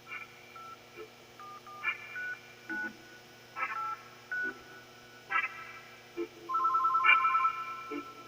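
Telephone sound effects: short electronic beeps and keypad-like tones about a second apart, then, after about six and a half seconds, an electronic ringtone pulsing rapidly between two pitches.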